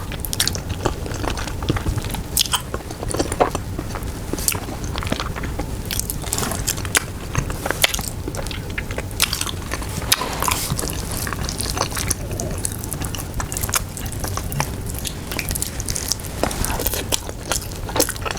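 Close-up eating sounds: a person chewing and biting braised pork leg with rice, with wet smacking and clicks scattered throughout.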